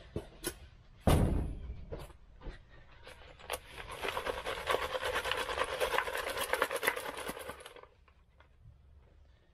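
A thump, then molehill soil being sifted through a wooden-framed garden sieve shaken by hand for about four seconds: a dense gritty rattle of soil and small stones against the mesh that stops suddenly.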